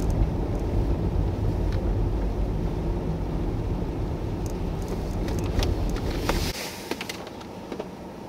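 Car driving on a snow-covered road: a steady low rumble of engine and tyres that cuts off about six and a half seconds in, leaving a quieter hiss with a few faint clicks.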